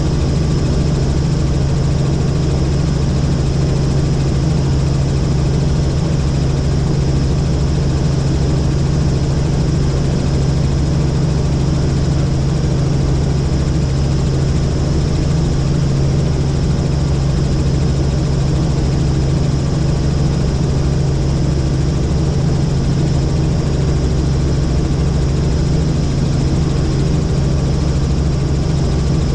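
Helicopter engine and rotor running steadily: a constant low hum with an even rush of noise above it, holding the same pitch and level throughout.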